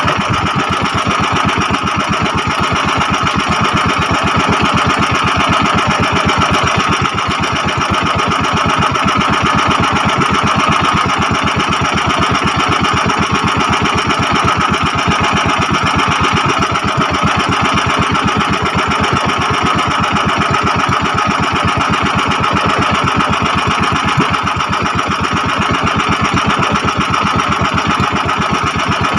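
Small fishing boat's engine running steadily at an even speed with a fast, regular clatter.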